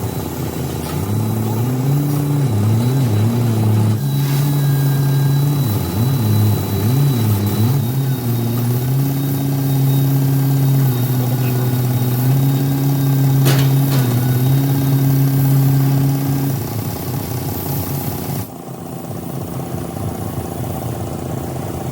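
Car engine running, its pitch rising and falling as it is revved for several seconds, then holding a steady speed before dropping away about sixteen seconds in.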